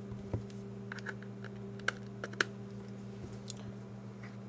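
Irregular light clicks and taps from hands handling a plastic Garmin nüvi GPS unit and its power-cable plug, over a steady low hum.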